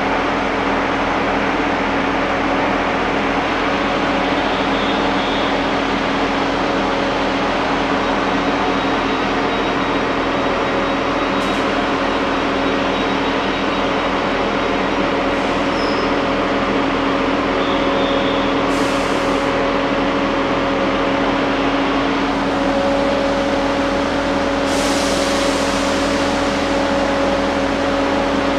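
Great Western Railway diesel multiple unit standing at the platform with its engine idling: a steady drone with a constant hum, and a few brief hisses now and then.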